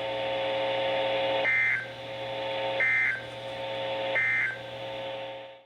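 EAS end-of-message data bursts: three short, identical high warbling digital bursts about a second and a half apart, closing out the alert. A steady buzzing drone runs underneath, dropping out during each burst, and everything cuts off abruptly near the end.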